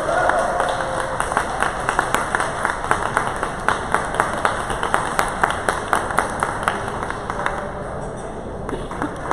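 Spectators clapping together in a quick, steady rhythm, several claps a second, thinning out near the end.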